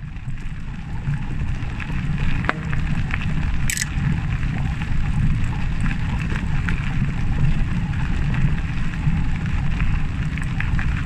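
A Specialized Tero 4.0 EQ e-bike on thick, knobbly tyres is ridden along a dirt and gravel track, making a steady low rumble of riding noise with scattered small ticks of grit.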